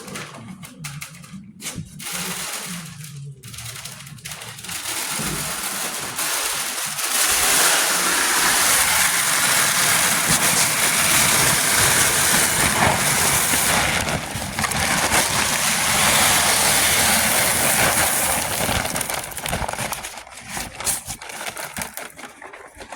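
Soybean seed pouring in a steady rushing rattle, which starts about five seconds in and stops near the end.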